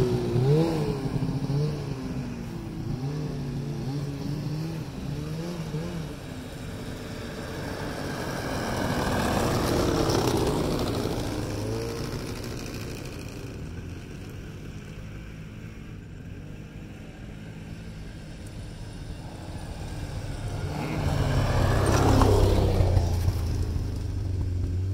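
Snowmobile engine running, its pitch rising and falling with the throttle and growing louder twice as it works harder.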